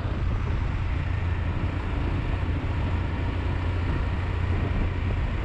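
Royal Enfield Himalayan's 411 cc single-cylinder engine running steadily while the motorcycle cruises along the highway. A low steady hum is heard under an even rush of wind and road noise.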